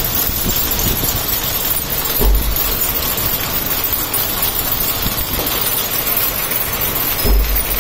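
16-spindle high-speed braiding machine running, its bobbin carriers circling the deck with a steady, dense mechanical noise. Two brief low thumps come about two seconds in and again near the end.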